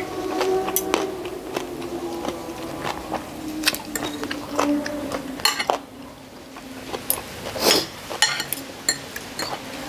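Metal spoon and fork clinking and scraping against a ceramic plate in scattered, irregular clicks, with a louder cluster of clinks near the end.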